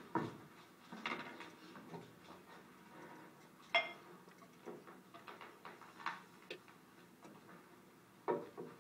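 Glass bottle and drinking glass knocking and clinking as a drink is poured and handled: a string of irregular light knocks, with one sharp ringing clink a little under four seconds in. Heard as film sound played in a screening room and picked up by a phone.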